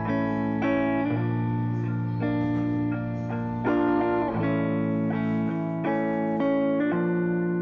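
Background music led by guitar, with sustained chords changing every second or so.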